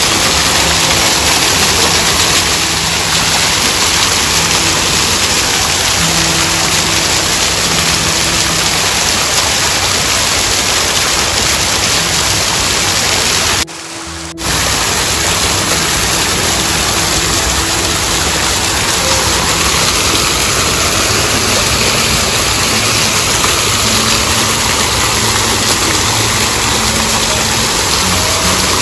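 Fountain jets splashing into their pool: a loud, steady rush of falling water, with faint music underneath. The sound drops out briefly about halfway through.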